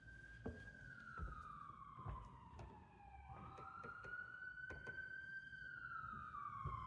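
Emergency vehicle siren wailing faintly: two slow cycles, each a quick rise in pitch followed by a long fall. A few faint clicks sound over it.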